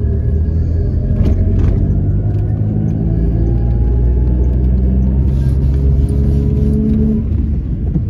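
Steady low rumble of a car's engine and tyres on the road, heard from inside the cabin while driving, with a faint tone that rises slowly over the first few seconds.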